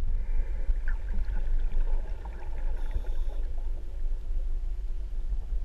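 Underwater sound from the camera: a steady, low muffled rumble of water with scattered faint clicks.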